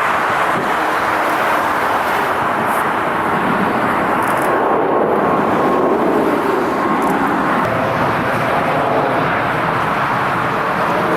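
Jet airliner engines, a loud steady rushing noise with a faint thin whine for a few seconds in the middle.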